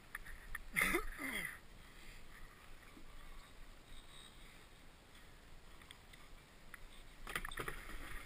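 Snowboard scraping and sliding over packed snow as the rider unloads from a chairlift, starting about seven seconds in. Before that, a steady low hiss during the chair ride, with one short loud sound falling in pitch about a second in.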